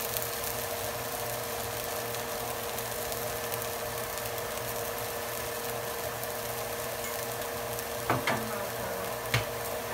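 Dosa sizzling on a hot griddle, a steady even hiss with a constant hum underneath. Two sharp clicks about eight and nine seconds in.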